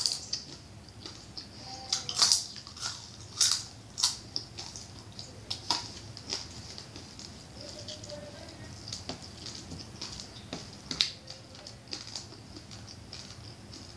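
Close-miked eating sounds: crunching and wet mouth noises as crispy air-fried quail is bitten and chewed. Sharp crunches come every second or so in the first half, with quieter chewing after and one more loud crunch near the end.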